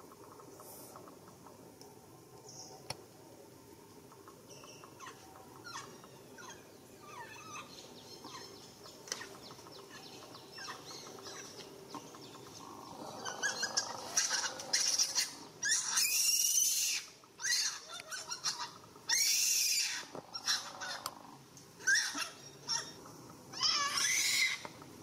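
Macaques giving high-pitched squealing calls that bend up and down in pitch, in a string of separate bursts starting about halfway through, over a faint background.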